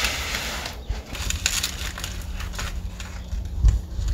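Foam packing sheet and cardboard being pulled and handled, an irregular rustling and crinkling, with a single low thump about three and a half seconds in.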